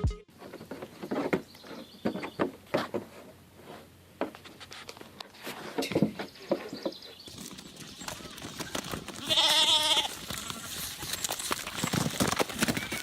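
A single wavering bleat from a goat or sheep about nine to ten seconds in, amid scattered clicks and knocks.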